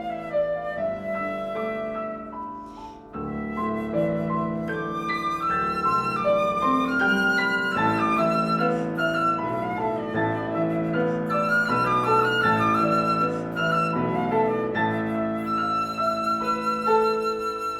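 Flute and piano duo playing a contemporary classical piece: the flute carries a moving melodic line over piano chords, easing briefly about three seconds in, then ending on a long held high flute note.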